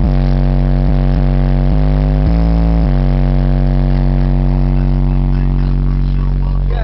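Four 15-inch Digital Designs car subwoofers playing loud, deep bass notes, with heavy distortion. The note changes several times in the first three seconds, holds steady, then slides down near the end.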